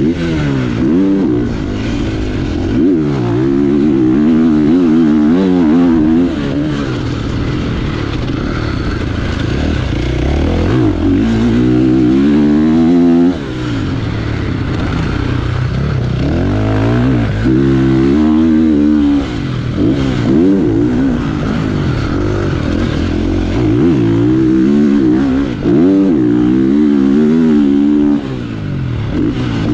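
2025 KTM 450 SX-F's single-cylinder four-stroke engine being ridden hard, heard from the rider's seat. The revs climb and fall again and again as the throttle is opened and closed, with sudden drops in level where the throttle is snapped shut.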